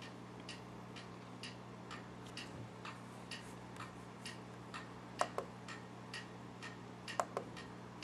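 Clock ticking steadily, about two ticks a second, over a low electrical hum, with a few sharper, louder clicks about five and seven seconds in.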